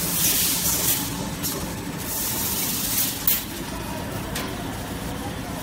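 Toilet tissue roll production and packing line running: a steady machine hum with repeated short hissing bursts and a sharp clack about three seconds in.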